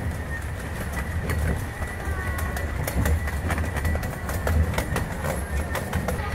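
Redwood Valley Railway's 15-inch-gauge miniature train cars rolling along the track: a steady low rumble with frequent irregular clicks of the wheels over the rails, and a thin steady high whine above it.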